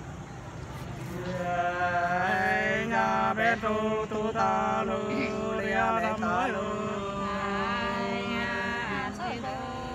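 Two men singing hát sli, the Nùng folk love-song, together and unaccompanied, in long held notes that bend and waver, starting about a second in.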